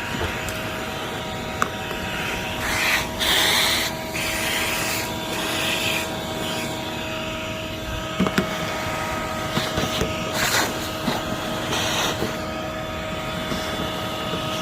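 Vacuum cleaner running with a steady whine, with several short spells of louder sucking hiss.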